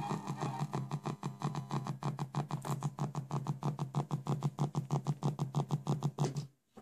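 Interference noise from an MP3 player module through a cassette deck's amplifier and speakers: a rapid, even pulsing buzz, about seven pulses a second, over a steady low hum, cutting off suddenly near the end. The owner takes it for a ground loop, the module sharing the tape-motor power supply with the deck's audio ground.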